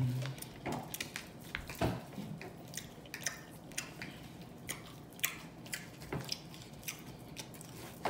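A person chewing a mouthful of food close to the microphone, with wet mouth smacks and clicks coming irregularly several times a second.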